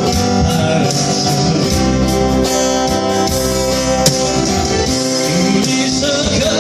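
Music: an instrumental interlude of a Korean ballad, guitar to the fore over sustained accompaniment; a singing voice with vibrato comes back in at the very end.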